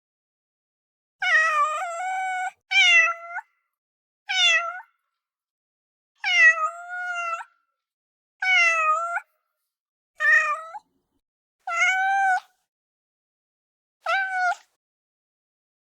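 A domestic cat meowing eight times in a row, each meow under a second long, separated by short silent gaps.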